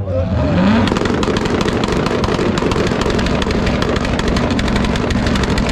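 Car engine revved up quickly and held on a two-step launch limiter, its exhaust firing a rapid, continuous string of pops and bangs.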